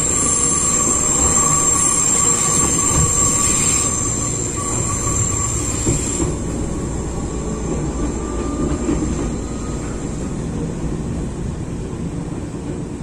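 Running noise heard from inside a Nagano Electric Railway 8500 series (ex-Tokyu) electric train: a steady rumble of wheels on rail with a thin high whine over it, the highest part of the whine cutting off about six seconds in.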